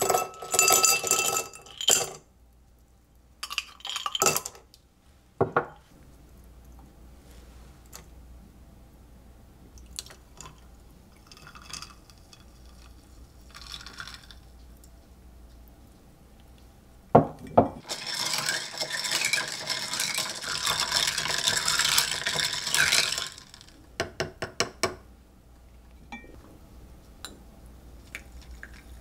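Kitchen handling sounds from making an iced latte in a glass: ringing glass clinks near the start, scattered spoon-on-glass knocks and clicks, and about five seconds of steady rushing noise in the later part, followed by a few quick light clinks.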